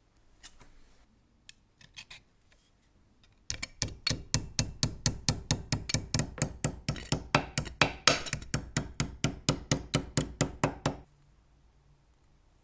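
A hand tool working the metal of an antique stove: a few scattered clicks, then a steady run of sharp, even strokes, about five a second, for some seven seconds, stopping suddenly.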